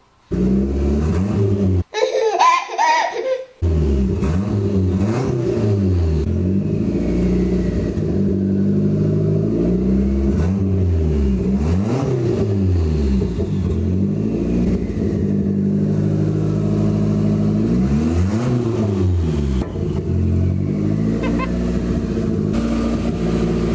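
Turbocharged Nissan KA24DET four-cylinder running, its throttle blipped several times so the pitch rises and falls back. About two seconds in, a short spliced-in clip of other sound briefly replaces it.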